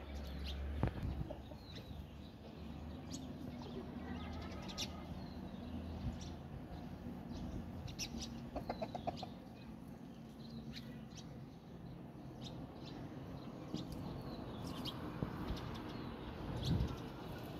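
Domestic chickens, a rooster and hens, clucking, with a quick run of clucks about halfway through. Small birds chirp over it throughout.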